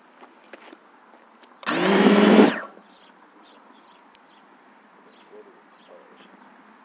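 FPV quadcopter's brushless motors spinning up in a short whining burst of about a second, rising in pitch at the start and then cutting off, while the quad stays on the ground. Faint bird chirps continue afterwards.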